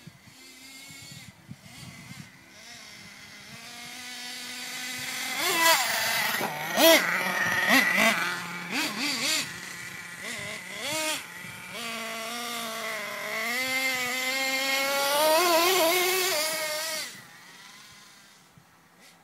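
Small nitro engine of an HPI Savage X 4.6 RC monster truck, running through an LRP exhaust and revving up and down as the truck drives around. It grows louder over the first few seconds and is loudest with sharp revs about six to eight seconds in. It falls away suddenly about seventeen seconds in.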